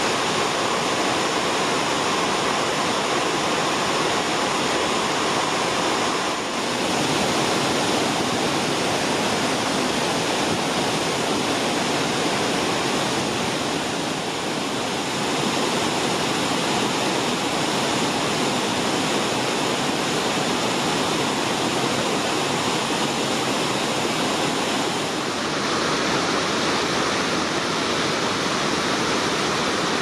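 River whitewater pouring over a dam spillway and down rocky falls and rapids: a steady, dense rush of water that shifts slightly in tone a few times.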